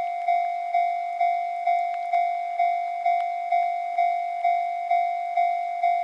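Japanese level-crossing warning bell ringing, about two strikes a second at one steady pitch, each ring fading before the next: the crossing signal is active, warning that a train is approaching.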